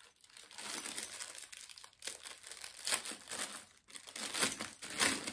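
Clear plastic packaging bag crinkling as it is handled and opened, in irregular rustles with a couple of brief pauses.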